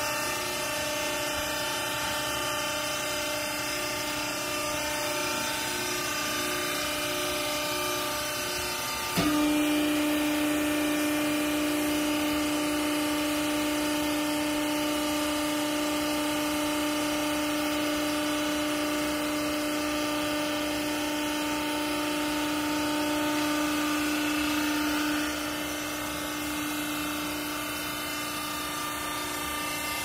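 Hydraulic power unit of a vertical used-clothes baler running with a steady, multi-toned hum. About nine seconds in, a click is followed by a louder, lower steady tone, which drops away again at about twenty-five seconds.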